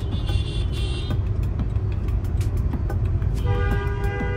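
Traffic heard from inside a car: a steady low rumble of engines and road. A brief high-pitched toot sounds near the start, and a longer vehicle horn blast begins about three and a half seconds in.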